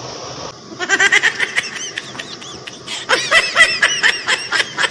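High-pitched giggling laughter in rapid repeated bursts, starting about a second in.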